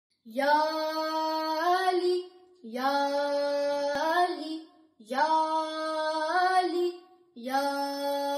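A boy singing a manqabat, Urdu devotional verse in praise of Imam Ali, without accompaniment: four long held phrases with short breaths between them, each stepping up in pitch near its end.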